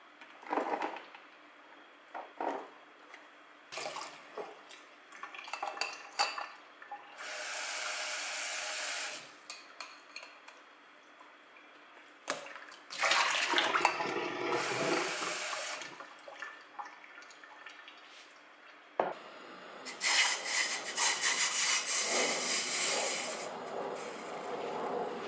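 Kitchen tap running in several bursts of a few seconds each, rinsing sliced mushrooms in a mesh sieve over a stainless steel sink, with light clinks and knocks of the sieve, bowl and plastic punnet between the bursts.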